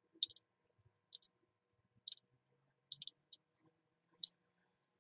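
Metal spoon clicking lightly against a small ceramic bowl while scooping milk: about seven faint, sharp clicks at irregular intervals.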